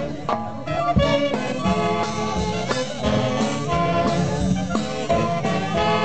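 Dance music from a live orchestra, with held melody lines over a steady beat.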